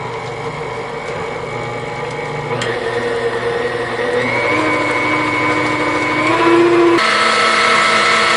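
Electric mixer running steadily as it beats cream cheese, powdered sugar and vanilla. It starts at low speed and is stepped up in speed a few times, with a clear jump about seven seconds in.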